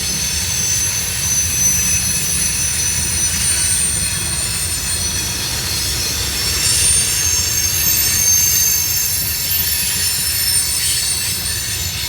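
Freight train cars rolling past close by with a steady low rumble and loud, high-pitched squealing from the wheels, several shrill tones ringing at once. Very loud.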